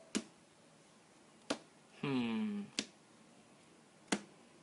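Sharp snaps of Bicycle playing cards as the deck is cut packet by packet, four of them about a second and a quarter apart. About two seconds in there is a brief hummed 'hmm' that falls in pitch.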